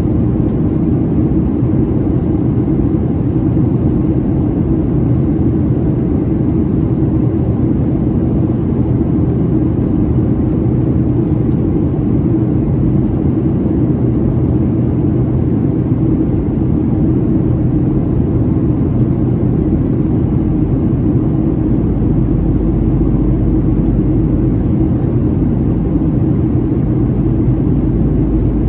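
Steady cabin roar of a Boeing 737-700 in flight during descent, from its CFM56-7B jet engines and the airflow over the fuselage. A deeper low rumble joins about three quarters of the way through.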